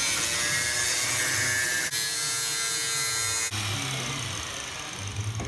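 Angle grinder with a cutting disc slicing through the steel exhaust pipe to cut off the old tailpipe tip: a steady, high-pitched grinding hiss that breaks off abruptly about three and a half seconds in.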